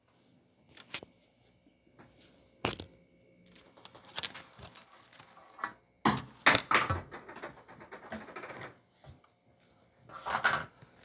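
Clear plastic wrap around a silicone baby doll crinkling and rustling as the doll is handled and turned, with a few sharp clicks. It comes in several bursts, loudest about six seconds in and again near the end.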